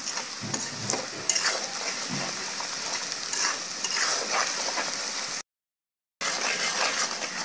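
Chopped onions, green chillies and ground spices sizzling in hot oil in a karahi, with a metal spatula stirring and scraping the pan in short strokes. The sound cuts out completely for under a second and then resumes.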